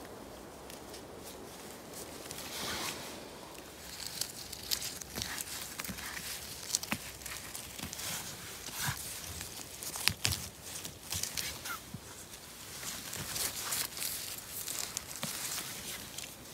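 Footsteps and a hand rustling through moss, twigs and dry pine needles on a forest floor while mushrooms are picked, with scattered sharp snaps and clicks. It is quieter for the first few seconds.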